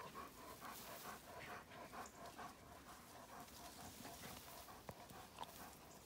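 A dog panting faintly in a quick, even rhythm, about four breaths a second.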